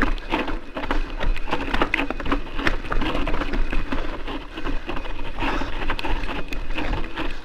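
Mountain bike rolling over a rocky dirt trail: a dense, continuous rattle of crunching tyres and many sharp clicks and knocks from the bike.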